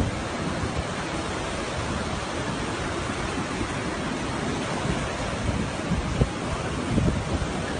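Steady, even rush of surf breaking on a sandy beach.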